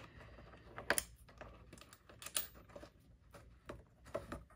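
A few scattered light clicks and taps as a socket-head screw with a washer is handled and started into a mount by hand.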